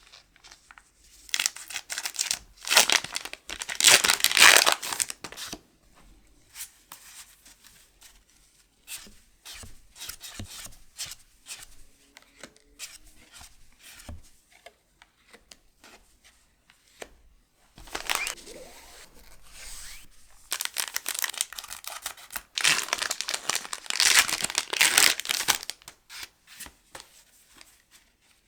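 Foil booster pack wrappers being torn open and crinkled, in two long spells, with light scattered clicks from handling in between.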